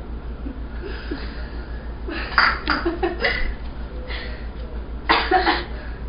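A person's short, breathy vocal bursts in two groups, about two seconds in and again about five seconds in, over a steady low electrical hum.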